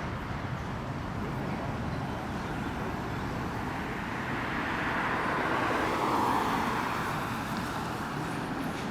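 Jet aircraft engine noise at the airport: a steady rumble that swells about five to six seconds in and then eases.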